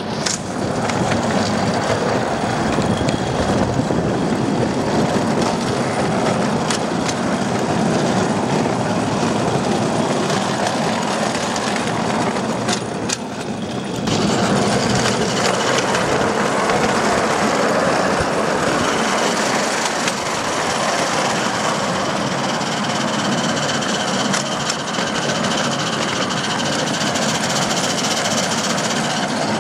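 Miniature train running behind a Maxitrak Alice live-steam quarry Hunslet locomotive, heard from on board: wheels rattling and clicking over the track with a steady rush of noise. There is a brief break about fourteen seconds in.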